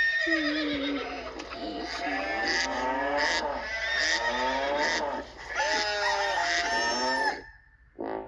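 Farm-animal sound effects: chickens crowing and clucking, several calls overlapping, stopping suddenly about seven and a half seconds in.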